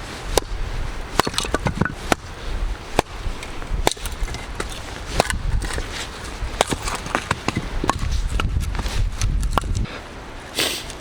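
Irregular sharp snaps and cracks of dry wood as a campfire is built and lit, over the low rumble of wind on the microphone.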